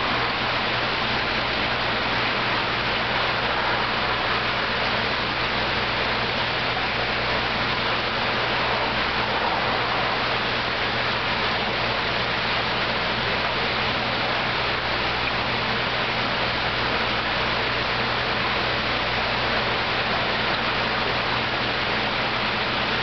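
Steady rushing of water in a fish holding tank, with a low steady hum underneath.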